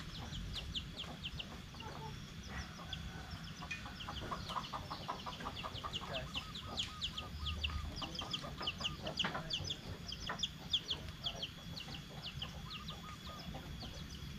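Free-range village chickens clucking, with runs of quick, high, falling chirps throughout.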